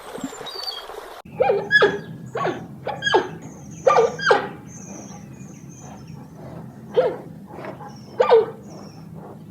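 A wild animal giving a string of short, sharp calls, about ten in all, starting about a second in and coming irregularly, some in quick pairs, with faint high chirps between them.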